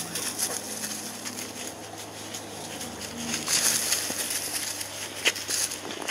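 Dry leaves, twigs and brush rustling and crackling underfoot as the undergrowth is walked through. The rustling swells about three and a half seconds in, and a sharp snap comes a little after five seconds.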